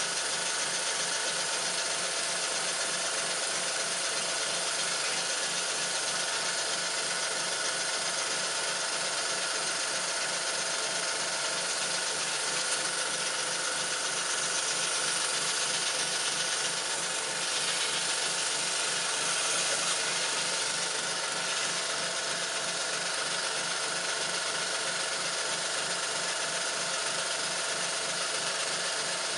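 Small airbrush compressor running loudly and steadily, driving a single-cylinder Stuart No. 4 replica model steam engine on compressed air, whose rapid, even mechanical beat runs underneath. The engine is running smoothly, with no binding.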